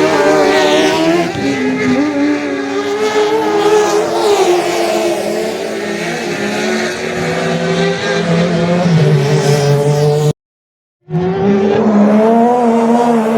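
Several off-road 4x4 race cars' engines revving hard, their pitches rising and falling and overlapping as the cars work through a corner. The sound cuts out completely for under a second about three quarters of the way through, then the engines return.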